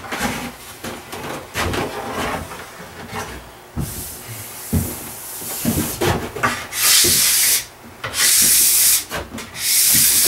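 A hand wax scraper is drawn along a ski's base and edges to clear off warm base-prep wax. It starts with light rubbing and small clicks, then about four long, loud scraping strokes of roughly a second each follow in the second half.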